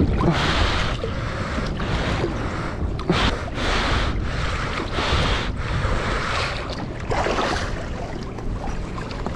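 Wind buffeting the microphone over water sloshing and splashing against the side of a small boat, in uneven surges, as a giant trevally is held alongside the hull.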